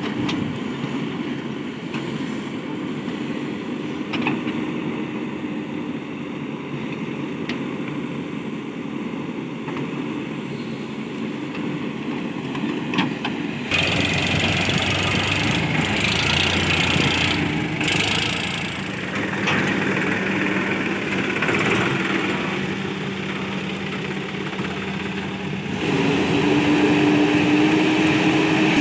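Diesel engines of a Case backhoe loader and tractors running steadily while mud is loaded; the sound changes abruptly about halfway through and again near the end, as the engine pitch and mix shift.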